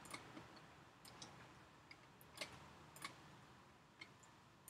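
Faint, scattered computer clicks, about half a dozen spaced irregularly, over near-silent room tone.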